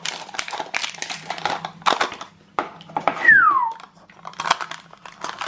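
Plastic wrapping crinkling and crackling as a surprise egg is unwrapped and opened by hand. About three seconds in there is a short squeak that falls in pitch.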